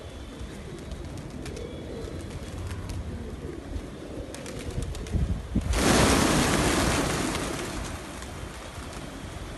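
A flock of pigeons cooing. About six seconds in, the whole flock takes off at once in a loud rush of flapping wings that fades over the next two seconds.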